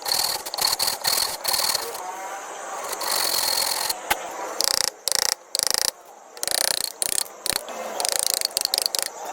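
Rapid mechanical clicking in quick runs, with a steady high whine during the first two seconds.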